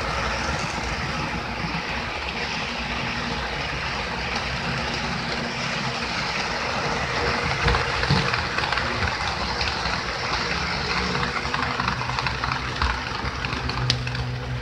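HO-scale model trains running past on the layout track: a steady rattle of wheels on rail joints and motor hum. A low steady hum comes up near the end.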